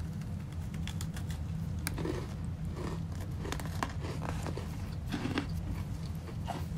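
Biting into and chewing crisp Oreo chocolate sandwich cookies: scattered small crunches and clicks over a steady low hum.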